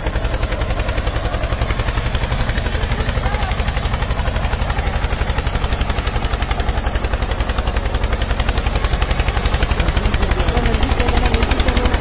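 Tractor engine sound: a steady, rapid chugging of about ten even beats a second, a little louder near the end.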